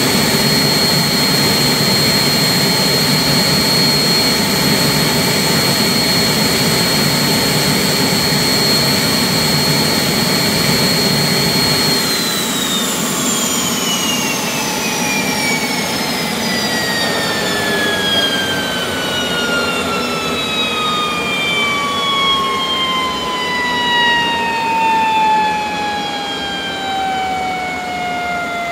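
Turbomeca gas-turbine engine running on a test stand with a steady high whine over the roar of its exhaust. About a third of the way in the roar drops, and the engine spools down, its whine falling steadily in pitch.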